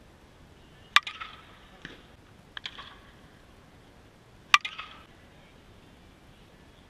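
Slowpitch softball bat (a 2017 Louisville Slugger Super Z Balanced) striking pitched softballs: two loud, sharp cracks about three and a half seconds apart, each ringing briefly, with fainter knocks after the first.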